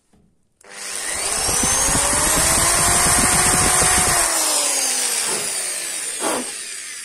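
Electric drill with a 3 mm bit spinning up and cutting into steel through a linear guide rail's mounting hole, to spot-mark a hole. The motor runs at a steady pitch with scraping for about three seconds, then is let off and its pitch falls as it winds down.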